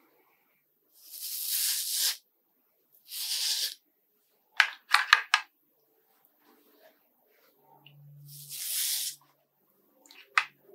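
A shaving brush working lather in a plastic bowl: three hissing swishes of about a second each, with a quick run of four sharp taps in between, like the brush knocking against the bowl.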